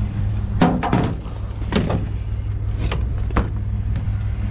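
The metal tube frame of a folding camp chair clanks and rattles a few times as it is handled and loaded onto a pickup truck, over a steady low rumble.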